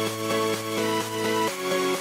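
Electronic dance music with synth chords and a steady pulsing beat; the chord changes about one and a half seconds in.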